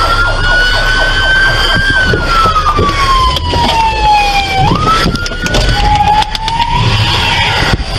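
Police car siren wailing: a slow rise and fall in pitch that jumps sharply back up a little past halfway, then sags and fades near the end, over the low rumble of idling traffic.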